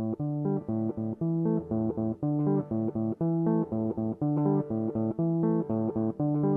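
Background music: a clean plucked-guitar intro playing a repeating riff of separate notes at a steady pace, with no drums or vocals.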